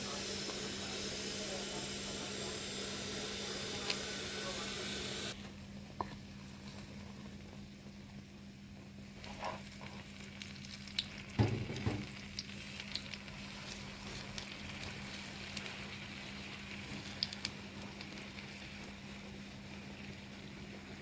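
Food sizzling in a hot pan, a dense hiss that cuts off abruptly about five seconds in. After that come quieter kitchen handling sounds with light clicks and one louder knock about halfway through, over a steady low hum.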